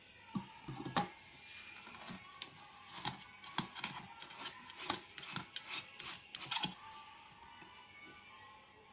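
Irregular clicks and light scrapes of hand handling as a white plastic soap bottle is screwed onto the threaded shank of a stainless steel kitchen soap dispenser; the clicking stops about seven seconds in.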